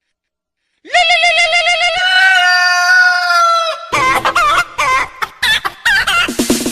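Funny ringtone of farm-animal calls: a quavering bleat-like call, then one long drawn-out crow-like call. About four seconds in, quick chirpy electronic sounds with bending pitch take over, leading into dance music.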